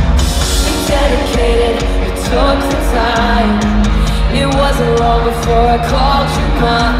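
Live pop-rock band playing at full volume in an arena, with electric guitar, drums and a singing voice, recorded from among the crowd.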